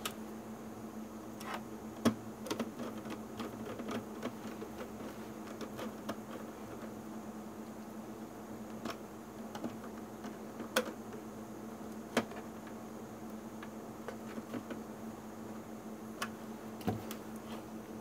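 Scattered small clicks and taps of a precision screwdriver working the screw terminals of a plastic WiFi relay module, with the sharpest clicks about 2, 11 and 12 seconds in, over a steady faint hum.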